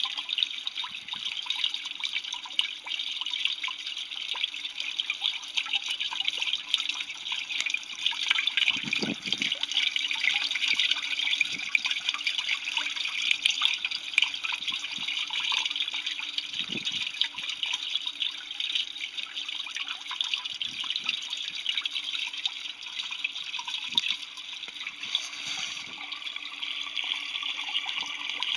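Water swirling and draining down the central whirlpool of a clear cylindrical vortex water fountain: steady running and trickling water, with a couple of brief deeper gurgles.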